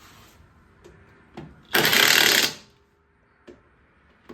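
DeWalt DCF899 20-volt cordless half-inch impact wrench hammering in one short burst of just under a second, about two seconds in, run in reverse to snug down a left-hand-threaded lug nut. A few faint clicks come before it.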